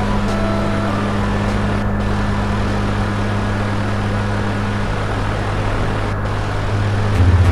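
Ceiling fan running: a steady low hum under an even rushing, whirring noise.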